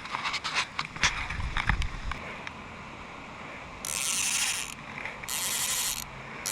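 Click-and-pawl ratchet of an old skeleton fly reel buzzing in short pulls as line is drawn off the spool, starting about halfway, with scattered light clicks of handling before.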